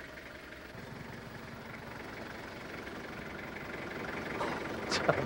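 Van engine idling steadily, slowly growing louder; a brief voice is heard near the end.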